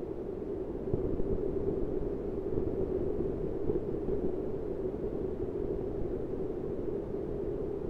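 Steady low droning noise with no speech in it, rising slightly in level about a second in and then holding even.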